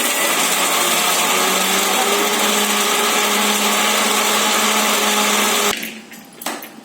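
Kitchen mixer grinder (mixie) running steadily, grinding cooked gongura leaves and green chillies into chutney. The motor cuts off suddenly near the end, followed by a single short knock.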